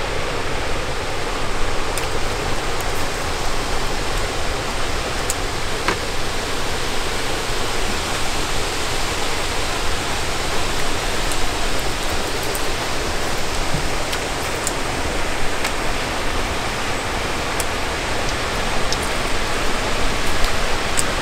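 Steady rushing noise with a rumbling, fluttering low end, with a few faint short clicks.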